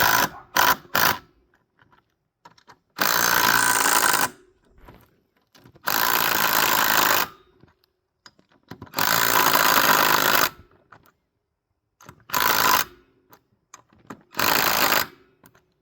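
Impact wrench running the wheel lug nuts tight on an ATV, in loud bursts of about a second each, several seconds apart, the last couple shorter as the nuts seat.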